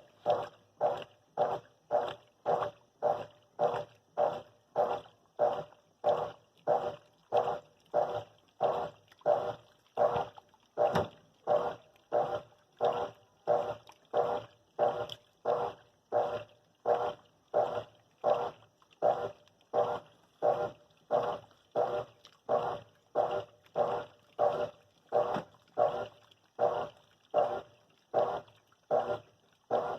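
GE 10 kg multi-capacity washing machine agitating its load: one swishing stroke after another, about three every two seconds, as the agitator reverses back and forth.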